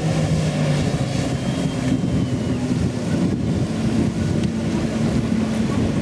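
Jet ski engines running, a steady motor drone whose pitch shifts a little, with wind on the microphone.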